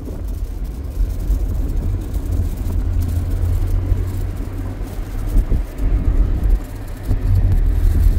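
Car driving, heard from inside the cabin: steady low engine and road noise.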